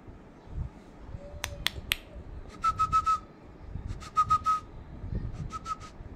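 A squeaky plush toy squeezed in quick runs of four or five short high squeaks, three times, after a few sharp clicks about one and a half seconds in.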